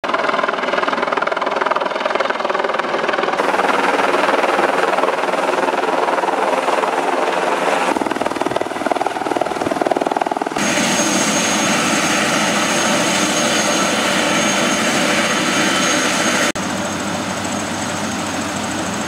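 Medical helicopter's rotor and turbine engine running loud as it comes in low to land, with the beat of the blades heard clearly in places. The sound jumps abruptly several times and is quieter over the last few seconds.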